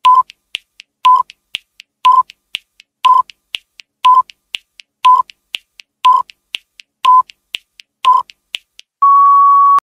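Countdown timer sound effect: a short electronic beep once a second, nine times, with fainter ticks between the beeps, ending in one long, slightly higher beep near the end.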